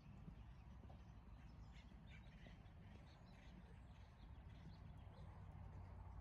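Near silence, with faint, scattered bird chirps over a low background rumble.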